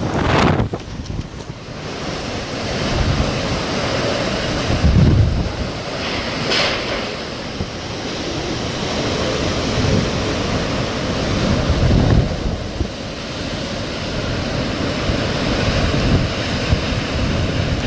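Hurricane wind rushing steadily, with gusts buffeting the microphone in low rumbles.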